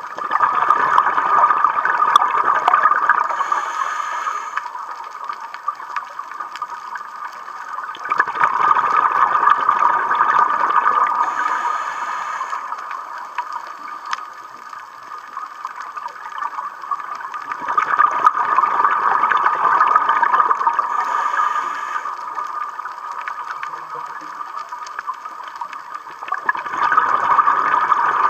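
A scuba diver's breathing heard underwater: rushing, gurgling bursts of exhaled bubbles from the regulator, each lasting a few seconds and coming about every nine seconds, four times.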